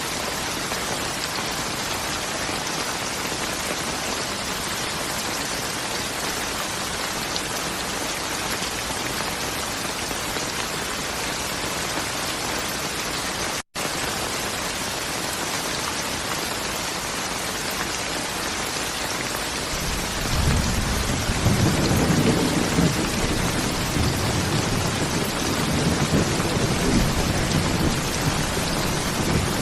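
Steady heavy rain hiss, which cuts out for an instant about halfway through. From about two-thirds of the way in, a low rolling rumble of thunder builds under the rain and carries on to the end.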